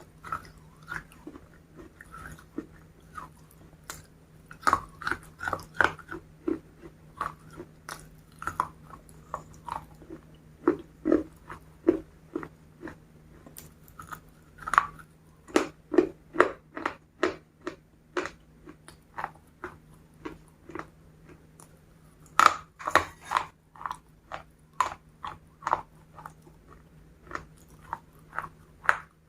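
Close-miked biting and chewing of crispy KFC fried chicken: sharp, irregular crunches coming in runs of quick chews.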